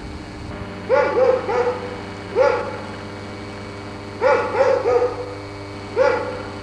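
A dog barking, eight short barks in quick runs of three, one, three and one, over a steady low hum.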